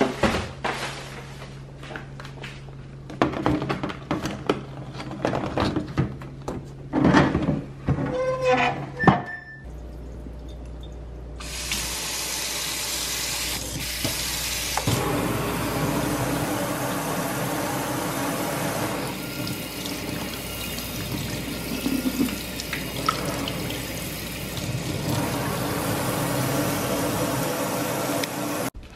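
A series of knocks and clatters over a low steady hum as things are handled in a freezer. Then, about eleven seconds in, a kitchen faucet comes on and water runs steadily into a stainless-steel sink, part of the time from the spray head.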